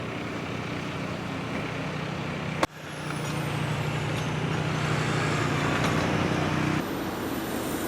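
Steady low hum of a heavy vehicle's motor over a wash of background noise. It cuts off abruptly about two and a half seconds in, returns, and drops in level near the end.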